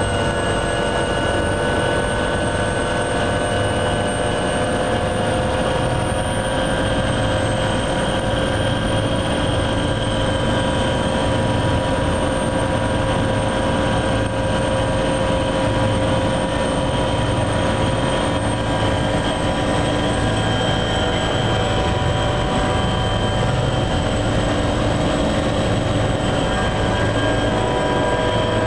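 A helicopter's turbine engine and rotor running steadily on the ground, heard from inside the cabin. A thin high whine and several steady tones sit over a low pulsing drone, and the high whine dips slightly about twenty seconds in.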